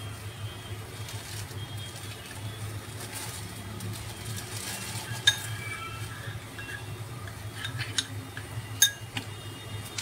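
Kitchen utensils clinking: a few sharp metal clinks with brief ringing in the second half, the loudest near the end, over a steady low hum.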